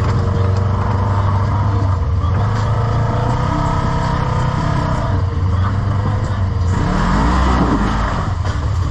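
An engine running steadily, its pitch rising briefly about seven seconds in as it revs.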